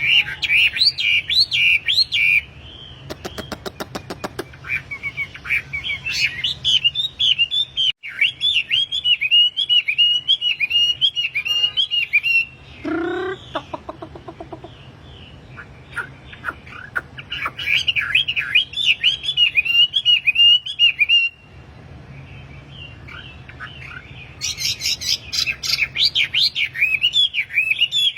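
A bird known in Indonesian bird-keeping as the wambi singing in full voice: phrases of rapid, high chirping notes, each lasting a few seconds with short pauses between. A low steady hum runs underneath.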